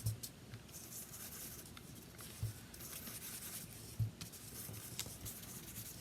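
Distress ink being rubbed onto a paper scrap with an ink applicator: scratchy rubbing in short strokes, with a couple of soft knocks.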